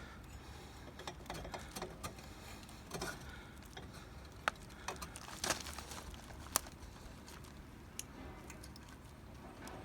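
Scattered light clicks and taps, irregular and roughly one a second, from metal parts being handled as a slim silencer is fitted to a motorcycle exhaust.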